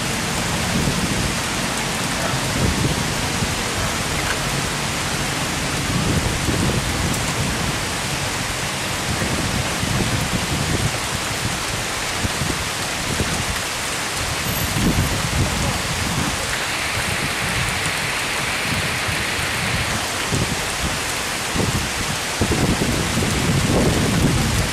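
Steady rain falling on a forest, with low rumbles coming and going underneath.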